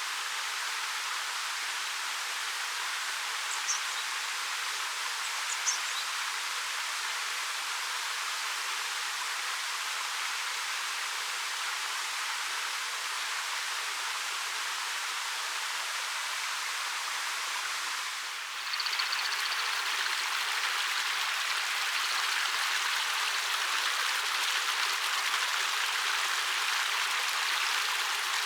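A 13 m waterfall pouring over black rock, a steady rushing hiss that dips for a moment about two-thirds through and then comes back slightly louder. A couple of short, high bird calls sound about four and six seconds in.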